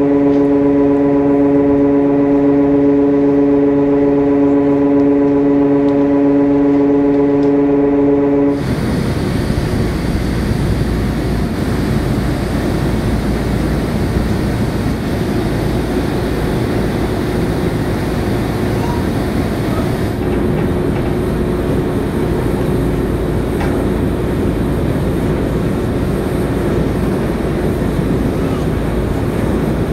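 The ferry Mary Ellen's ship horn sounds one long, steady blast of about eight and a half seconds and cuts off suddenly, the prolonged blast given when leaving the berth. After it comes the steady rumble and rush of the ship under way, with engine, water and wind.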